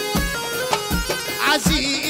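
Libyan folk wedding music playing: a steady drum beat under a sustained melody instrument, with a pitch rising in a glide about a second and a half in.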